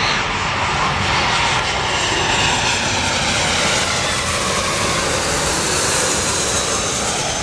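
Twin-engine Airbus A320-family jet airliner passing low overhead on approach to land, gear down, its jet engines making a loud, steady roar.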